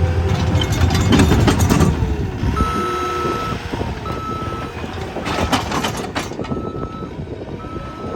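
Caterpillar 246D3 skid steer working, its diesel engine running with a few clanks, while its backup alarm beeps about once a second from about two and a half seconds in as the machine reverses.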